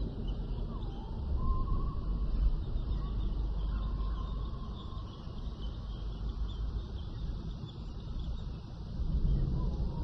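Prehistoric jungle ambience soundscape: a steady low rumble under a bed of high chirping, with one long drawn-out call that glides and then holds from about a second in to the middle.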